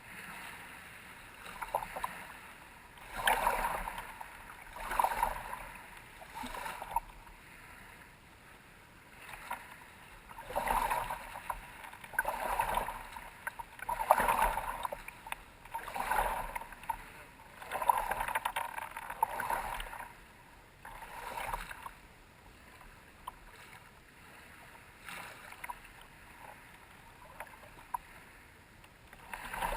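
Water splashing in repeated strokes, one surge every second or two, with quieter gaps between.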